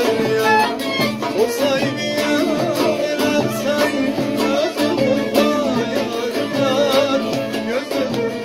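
Bağlama (long-necked Turkish saz) picked in a fast, steady rhythm, with a man singing a Turkish folk melody in wavering, ornamented lines over it.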